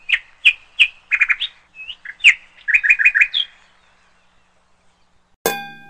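Rapid bird-like chirps, a dozen or so short tweets in quick runs, followed near the end by a single bright bell ding that rings on and fades.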